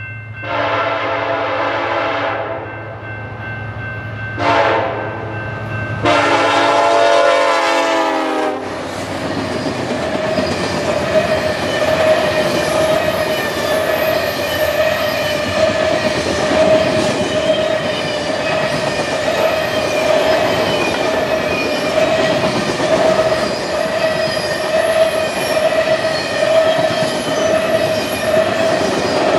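BNSF diesel freight locomotive's air horn sounding a long blast, a short one, then another long one whose pitch drops at its end as the locomotive passes about eight seconds in, over the low rumble of its engine. After that a long string of covered hopper cars rolls by, with a steady ringing tone over the rolling noise of wheels on rail.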